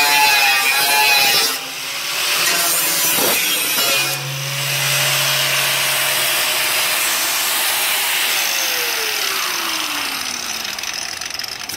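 Electric angle grinder cutting into an enamelled bathtub around its overflow hole, with a dip or two as the disc comes off the metal. In the last few seconds it is switched off and spins down, its whine falling steadily in pitch.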